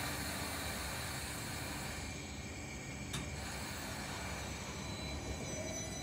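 Northern Class 333 electric multiple unit at the platform, a steady low hum and rumble with faint high whines from its electrical equipment. There is one short click about three seconds in.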